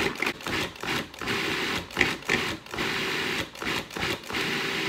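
Countertop food processor run in short pulses, its motor starting and stopping repeatedly with one longer run in the middle, the blade chopping garlic, scallions, shallots and ginger into fine bits.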